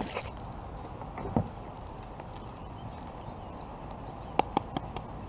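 Handling noises in a kayak while a small smallmouth bass is unhooked: a dull knock about a second and a half in and two or three sharp clicks near the end, over a steady outdoor hiss, with faint bird chirps in the background.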